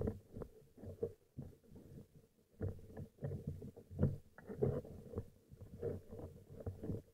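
Muffled underwater knocks and rubbing from a speargun and a speared fish being handled, picked up by the gun-mounted camera, over a faint steady hum.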